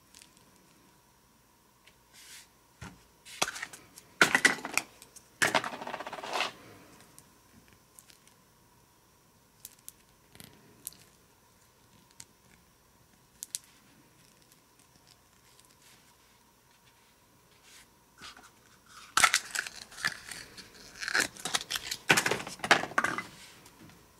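Plastic wrapping crinkling and tearing in two spells, one a few seconds in and one near the end, with small clicks of hard plastic toy capsules and figures being handled between them.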